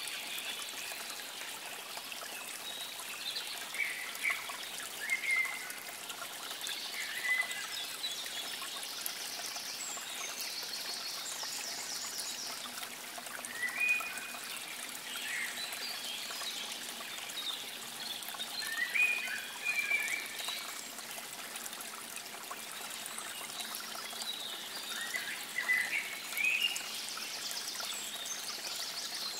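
Water trickling steadily, with birds calling and trilling over it every few seconds.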